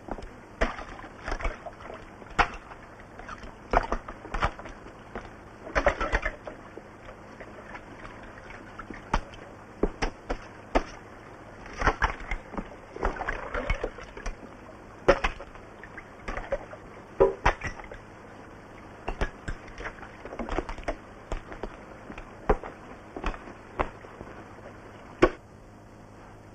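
An irregular series of sharp knocks and clacks, some in quick clusters, with a few brief scraping noises between them, over a faint steady hum.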